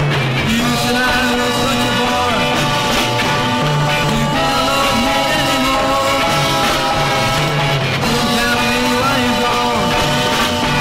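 1960s garage rock record playing: a band with a singing voice over guitar and bass, at a steady loud level.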